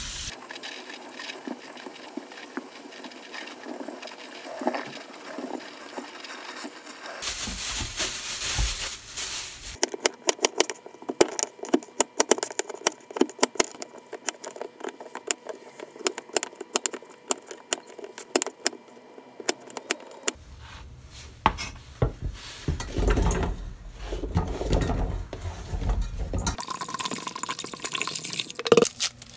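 A run of kitchen sounds: water splashing as raw chicken pieces are rinsed by hand in a colander in a steel sink, then a quick series of sharp knife chops on a plastic cutting board from about ten to twenty seconds in. After that come low thuds, and near the end water is poured into a pot of cut carrots and potatoes.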